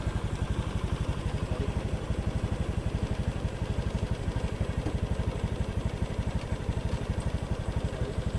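Small motorcycle engine running steadily, with an even, rapid low pulse.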